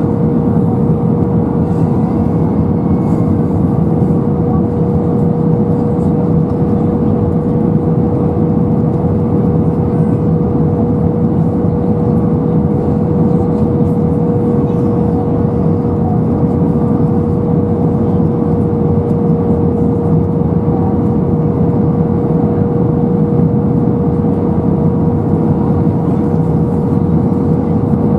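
Cabin noise of an Airbus A320-214 on approach, heard from inside the cabin: a steady rush of airflow and CFM56 engine noise with one constant hum tone running under it.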